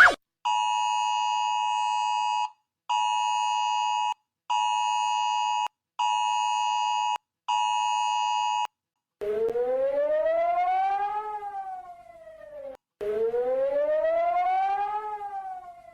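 Synthesized imitation of an iPhone emergency alert: a steady multi-tone chord sounding five times with short gaps, the first a little longer than the rest. About nine seconds in it switches to an imitation of Singapore's warning siren, a wail that rises and falls twice.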